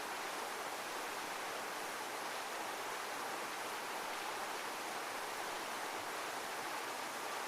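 Steady, even rush of heavy falling water, like a waterfall, with no rise and fall of breaking waves.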